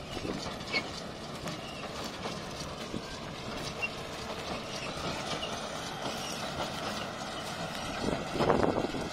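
A 110 hp New Holland T5060 tractor pulling a New Holland BB940A four-twine large square baler through straw, running steadily with a continuous mechanical clatter from the baler. There is a louder swell about eight and a half seconds in.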